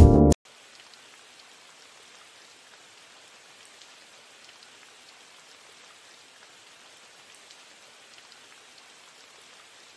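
Piano music cuts off abruptly just after the start, leaving a soft, even hiss of falling rain with faint scattered drop ticks: a rain recording used as the intro of a hip-hop beat.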